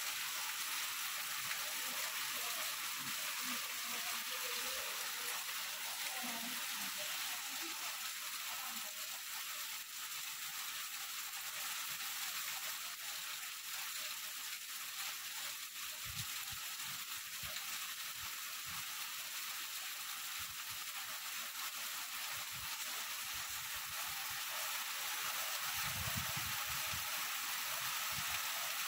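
Heavy rain falling steadily: a dense, even hiss of rain on foliage, road and roof. A few dull low thumps come about halfway through, with a longer one near the end.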